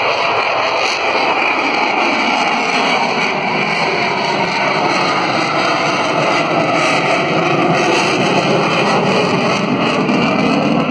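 Jet noise from an F/A-18 Super Hornet's twin turbofan engines as it flies its display overhead, a loud steady rush.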